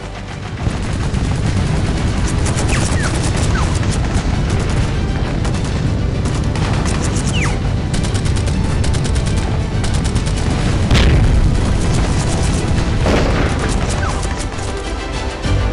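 Battle sound effects: dense, rapid rifle and machine-gun fire with booms, over background music. One louder blast comes about two-thirds of the way through.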